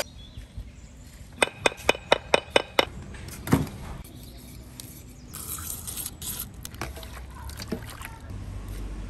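Hand tools at work on hard material: a quick run of about seven sharp taps, then a single softer knock and quieter scraping and handling noises.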